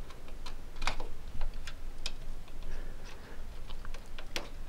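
Irregular small plastic clicks and taps of a DDR3 memory stick being handled and pressed against its motherboard slot and latches. The clicks come unevenly, the loudest about a second in and again near the end.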